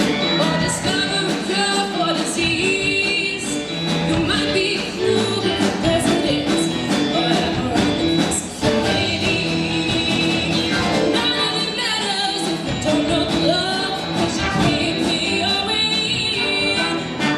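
Show choir singing with instrumental accompaniment.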